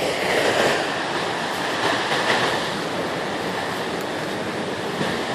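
Wind blowing across the microphone: a steady, rough rush of noise.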